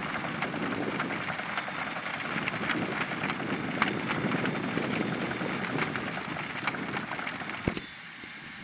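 Manure spreader at work: a dense crackling patter of flung manure clumps with many sharp hits over steady machine noise, cutting off abruptly near the end.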